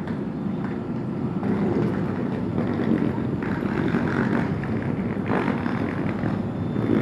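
Electric multiple-unit passenger train running alongside the platform, a steady noise that grows louder about a second and a half in.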